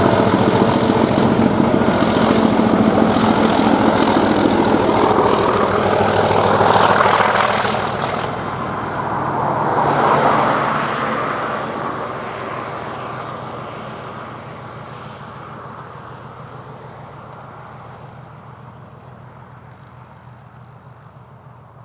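Class 37 diesel locomotive 37402, its English Electric V12 engine growling loudly as it pulls away under power, then fading steadily into the distance, with a brief swell about ten seconds in.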